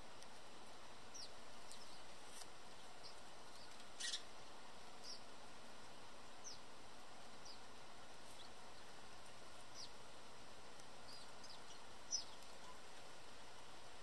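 House sparrows chirping at a seed feeder: scattered short, high, downward-sliding chirps, a couple of them louder, over a steady outdoor hiss.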